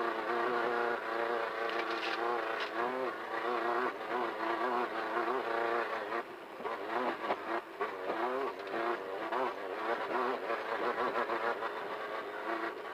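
Class 1500 off-road race car's engine heard from inside the car, revving up and down steadily at speed over rough desert ground. Short knocks from the car jolting over bumps come through now and then.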